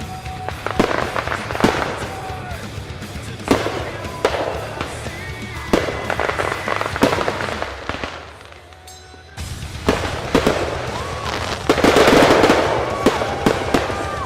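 Aerial fireworks finale: repeated sharp booms of shells bursting, a brief lull a little past the middle, then a dense cluster of bangs and crackle near the end.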